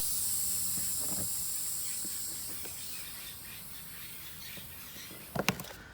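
Air hissing out of a tyre's puncture hole after the screw has been pulled out, steadily fading as the pressure drops. A couple of short knocks come about five and a half seconds in.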